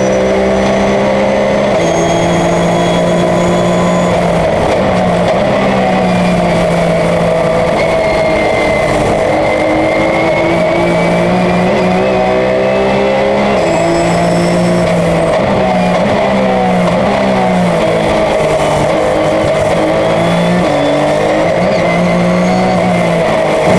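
Porsche 911 race car's flat-six engine running hard at racing speed, its pitch stepping down and climbing again over and over as it shifts gears through the corners.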